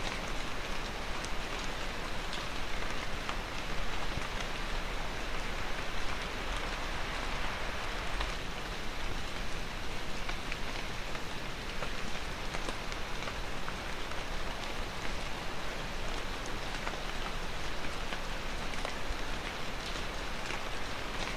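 Steady rain falling, a constant hiss of many drops with small individual drop ticks scattered through it.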